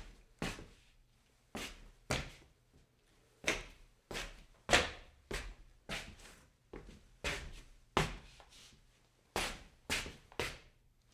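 Scuffs on stone: a series of short, sharp scrapes at an uneven pace, one or two a second, each dying away quickly.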